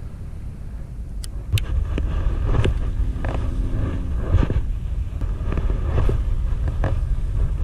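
Wind buffeting the microphone in a steady low rumble, with scattered sharp clicks from handling and casting a baitcasting rod and reel.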